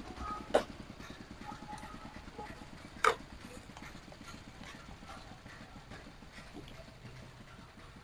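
Plastic jug knocked down on a stainless-steel stall counter: two sharp knocks, one about half a second in and a louder one about three seconds in, with faint small clicks between.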